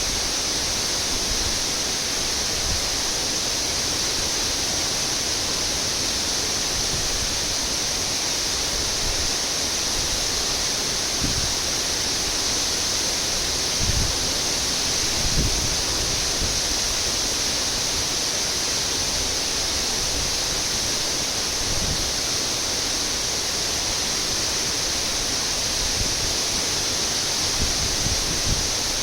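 Waterfall rushing steadily, a constant bright hiss of falling water, with a few brief low thumps now and then.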